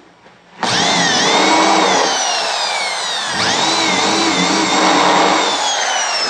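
Handheld corded electric drill running its bit into a wooden chair frame's corner brace. The motor whine starts sharply and sags in pitch as the bit bites. A little past three seconds in it picks up speed again, then slows once more under load.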